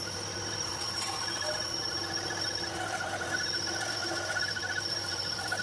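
Lathe turning a mild-steel hex rod, the cutting tool giving a steady high-pitched whine over a low machine hum.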